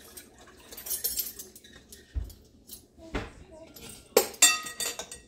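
A spoon clinking and knocking against a glass mixing bowl while stirring a yeast, sugar and water mix, loudest in two sharp ringing clinks near the end. Two dull thumps come a little past the middle.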